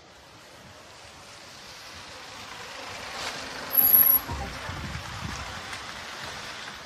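Panel van driving past close by: its tyre and engine noise grows steadily as it approaches, peaks in a brief loud burst as it passes about four seconds in, then fades as it drives away.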